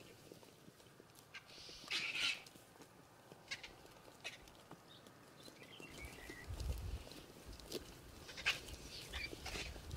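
White-backed vultures calling as they feed together at a carcass. There are short, noisy calls about two seconds in and again near the end, among scattered clicks and knocks.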